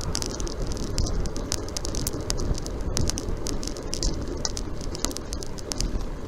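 Wind rushing over the microphone and road noise while riding a road bicycle, with frequent small sharp clicks and rattles scattered irregularly through it.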